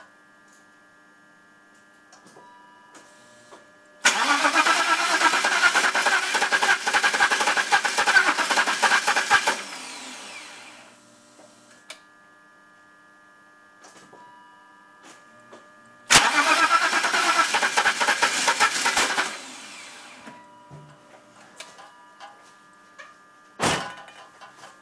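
A loud mechanical noise, like a motor, comes on suddenly twice, for about five seconds and then about three, and each time dies away over about a second. A faint steady whine of several tones runs underneath, and there is a short sharp noise near the end.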